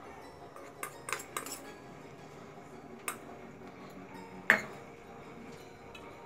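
A steel spoon and steel bowl clinking as flour is spooned and tipped out: a few light taps in the first second and a half, another about three seconds in, then one louder ringing clink about four and a half seconds in.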